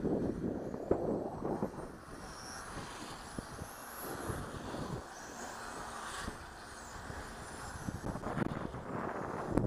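Electric motors of radio-controlled touring cars whining faintly, rising and falling in pitch as the cars accelerate and brake around the track. Wind rumbles on the microphone, loudest in the first couple of seconds and again near the end.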